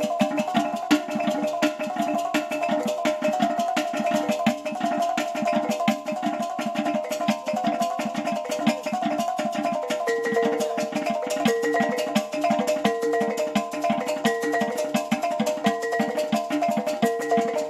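Music with fast, steady percussion and a pitched melody. About ten seconds in, a short higher phrase starts repeating roughly every second and a half.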